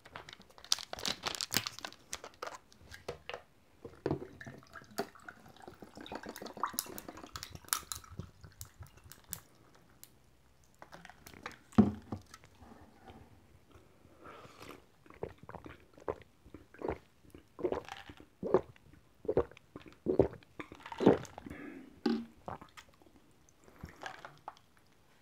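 A plastic bottle of balloon flower (doraji) tea is cracked open and the tea poured over ice in a glass, with ice crackling. About halfway through comes a run of loud gulps, roughly one every three-quarters of a second, as it is drunk, and near the end a second short pour.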